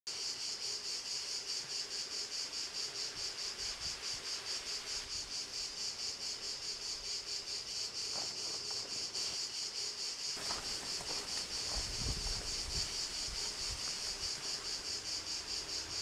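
Insects chirping in a steady, high, evenly pulsing chorus. A low rumble joins about two-thirds of the way through.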